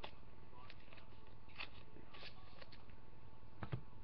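Faint, scattered clicks and rustles of trading cards being handled.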